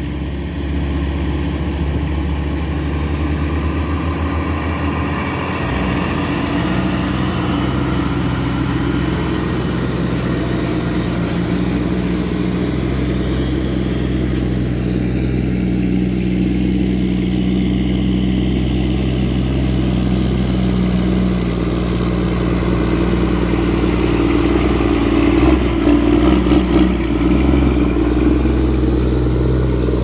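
Heavy diesel engine of logging equipment running steadily under work. Its low note shifts about five seconds in, and it gets louder and uneven for a couple of seconds near the end.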